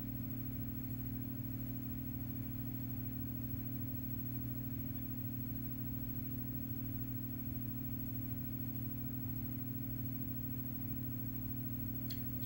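Steady low electrical hum.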